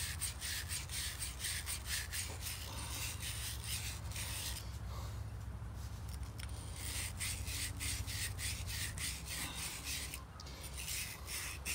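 Wire brush scrubbing inside the metal carburetor float bowl of a Honda GCV190 engine, rapid scratchy back-and-forth strokes at about three a second, pausing briefly twice. It is scouring out dirt left from the engine sitting unused.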